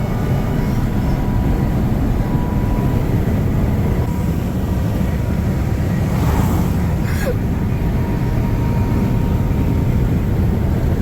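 Steady road and engine rumble inside a vehicle cabin moving at highway speed, with a short hiss and a click about six to seven seconds in.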